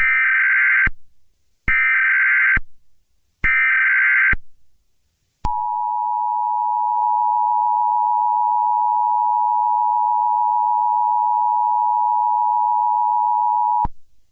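Emergency Alert System tones: three bursts of the SAME header's digital data screech, each just under a second with short gaps, then the EAS two-tone attention signal, a steady dual tone held about eight seconds before cutting off sharply.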